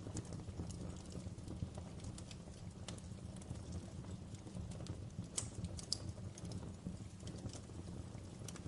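Wood fire crackling: scattered sharp pops and snaps over a steady low rumble, with a short run of louder pops a little past halfway.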